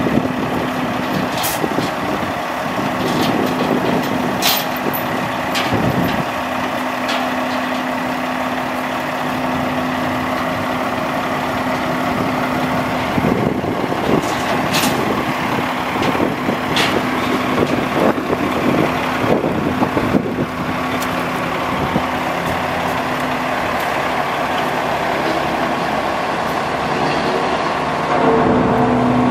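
A Sterling AT9500 dump truck's Caterpillar C12 diesel engine running with a steady hum while the dump body is lowered, with a few sharp clicks scattered through it.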